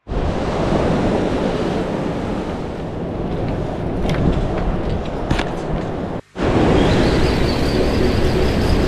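Wind buffeting the microphone over ocean surf washing on rocks, with a short break in the sound about two-thirds of the way through.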